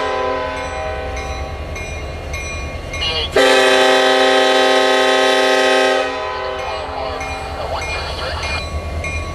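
CSX SD70ACe diesel locomotive's horn sounding a long chord, broken off briefly about three seconds in, then a louder blast lasting about two and a half seconds. After it stops, the locomotive and train run on with a steady low rumble.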